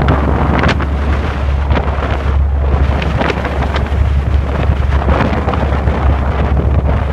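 Strong wind buffeting the microphone aboard a landing craft in rough seas, coming in repeated gusts, with the rush of breaking waves and a steady low drone underneath.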